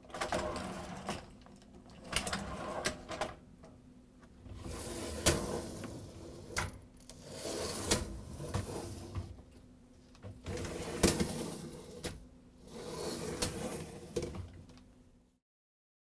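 Empty wire dishwasher racks rolled out and pushed back in on their wheels and rails, several times over, with metallic rattling and sharp clicks as they stop. This is the ordinary sound of empty racks moving, not a fault.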